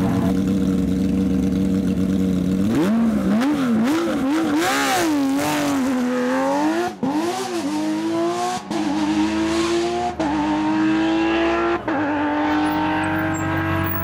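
Porsche 997 GT3 rally car's flat-six engine, held at steady revs at first, then revving up and down rapidly before accelerating hard away, its pitch climbing and dropping back at each of several quick upshifts about a second and a half apart.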